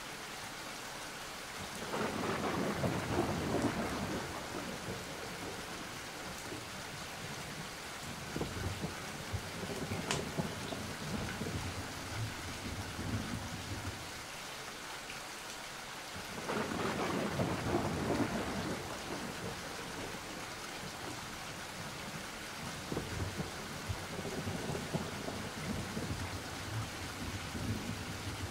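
Steady rain with rolling thunder: two loud rumbles swell up about two seconds in and again around the middle, with fainter rumbles in between.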